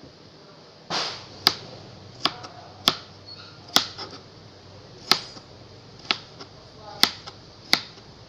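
Kitchen knife dicing cucumber on a cutting board: about nine sharp knocks of the blade striking the board at uneven intervals, roughly one a second.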